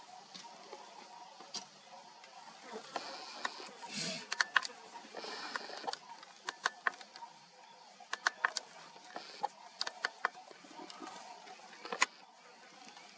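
A series of sharp, irregular clicks and snaps, about fifteen in all, bunched most thickly in the middle, with two short stretches of rustling a few seconds in.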